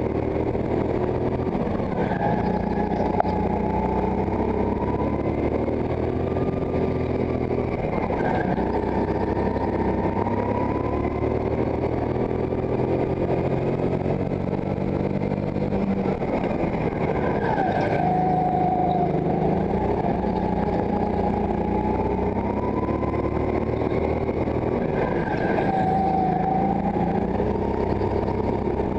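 Go-kart engine heard from on board during a lap, its pitch rising along the straights and falling away into the corners, over and over.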